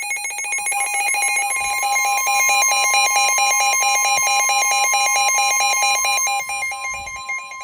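Weather radios sounding a severe-thunderstorm warning alert: a rapid, loud pulsing alarm beep, joined about half a second in by the steady 1050 Hz NOAA Weather Radio warning tone, signalling that a new warning is being broadcast.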